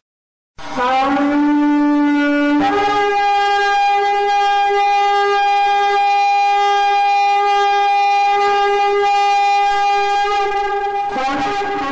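A shofar blown in one long blast. A short lower note rises slightly, then about two seconds in it jumps to a higher note held steady for about eight seconds, fading a little near the end.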